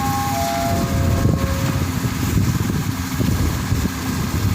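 Large diesel engine running steadily with a low, even rumble, most likely the ferry's own engines during docking. A few short steady tones step down in pitch in the first two seconds.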